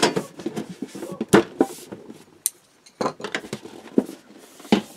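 A metal colored-pencil tin being handled: a series of sharp clicks and knocks of the tin and its lid, with rubbing and sliding noises between them.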